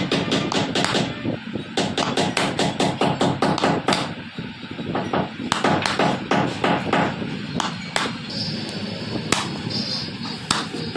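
Chisel being hammered into a wooden base, chopping out a round hole: a fast run of sharp wooden knocks, several a second, with a brief lull about four seconds in.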